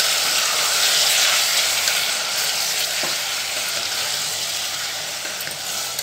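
Raw chicken pieces sizzling in hot oil in an aluminium pot, stirred and turned with a plastic spatula. The sizzle is a steady hiss that eases slightly toward the end.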